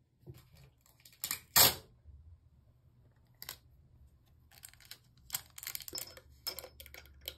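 A piece of clear tape crinkling and crackling as fingers handle it and press it onto a chrome pop-up sink stopper cap that is stuck shut. There is a sharp crackle about one and a half seconds in, then a run of short crinkles and taps near the end.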